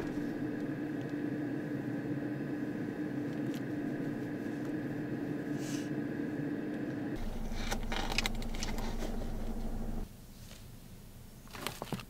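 Steady motor hum with a fixed low whine, heard inside a car cabin; it changes about seven seconds in, with a few clicks, and stops about ten seconds in.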